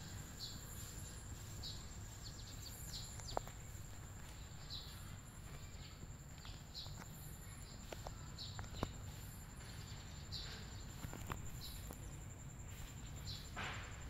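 Outdoor insect and bird ambience: a steady high-pitched insect drone with short chirps repeating about once a second over a low background rumble, and a few sharp clicks.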